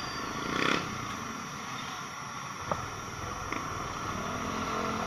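Motorcycle riding through street traffic: steady engine and road-wind noise, with a brief louder engine burst under a second in and a sharp click a little under three seconds in.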